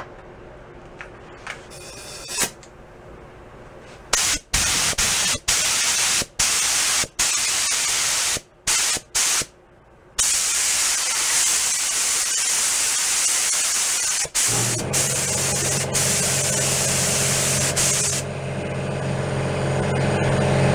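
Paint spray gun spraying clear lacquer: a hiss in about seven short trigger bursts, then one long continuous spray. About fourteen seconds in, a motor starts and runs with a steady hum underneath.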